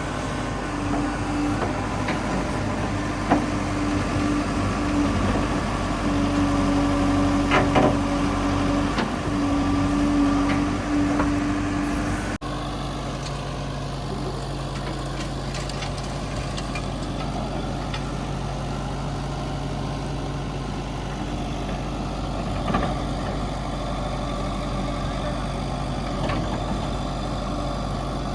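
Diesel engine of heavy earth-moving machinery running, with a strong tone rising and dropping in level and a few knocks in the first part. About twelve seconds in the sound changes abruptly to a steadier engine hum.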